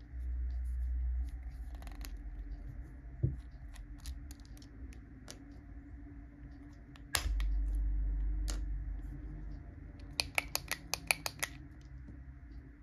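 Small plastic clicks and taps from the parts of a Tombow Airpress ballpoint pen as it is taken apart and its refill is pulled out, with a quick run of about eight clicks near the end. A low rumble comes twice, at the start and about halfway through.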